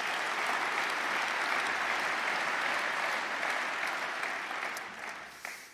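Large audience applauding, a dense steady clapping that dies away near the end.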